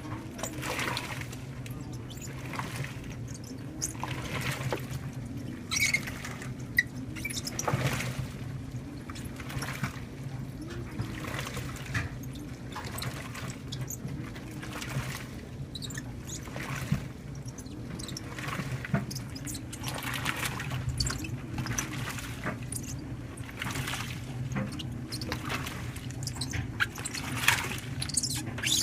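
2012 LG top-load washer agitating a heavy-duty load of towels and shoes: water sloshing in regular surges about once a second over a steady motor hum. The rubber Crocs and tennis shoes squeak against the drum now and then.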